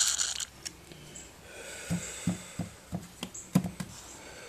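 Penetrating oil being put on the stuck valves of a Hercules ZXB engine: a short hiss at the start and a fainter one about a second in, then a run of about seven light clicks and taps.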